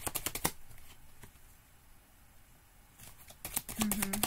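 Tarot cards being shuffled by hand: a quick run of small clicks and slaps that stops for about two seconds in the middle and then starts again. A brief hummed 'mm' comes near the end.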